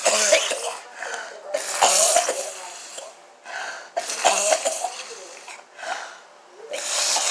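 A woman coughing, about five separate bouts spread a second or two apart.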